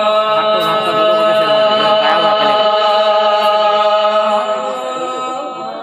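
A male naat reciter holding one long sung note, which eases off slightly near the end.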